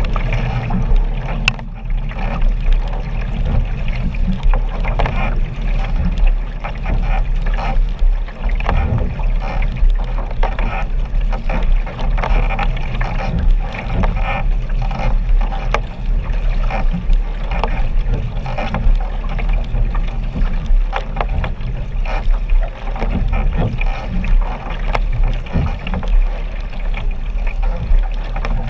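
Choppy water slapping and splashing close against a camera riding at the waterline, with a steady low rumble underneath.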